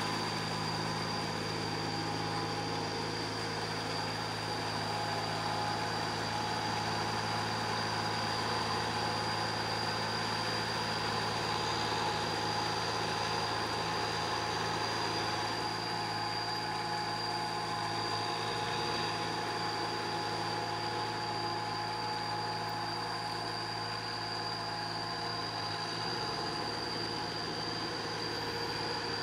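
Small tractor engine running steadily under load as the tractor drags a levelling board through a flooded paddy on cage wheels, with a steady high-pitched tone above the engine hum.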